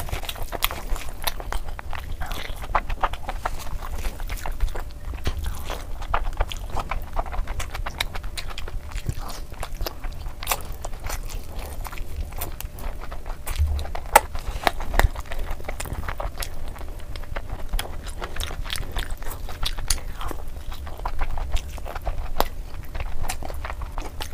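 Close-miked eating sounds: wet chewing, biting and lip smacking on curried chicken and fried rice eaten by hand, heard as a constant run of quick sticky clicks, with the squelch of rice and curry being mixed by fingers.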